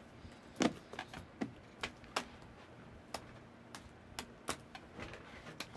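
Scattered light clicks and taps, about a dozen, irregularly spaced and quiet: small handling noises with no speech.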